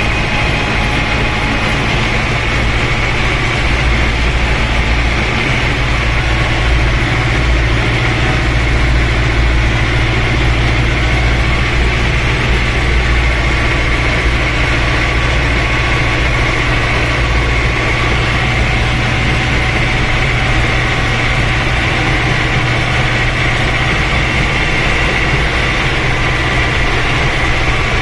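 Ursus C-360 tractor's three-cylinder diesel engine running steadily as the tractor plows snow, heard from inside the cab.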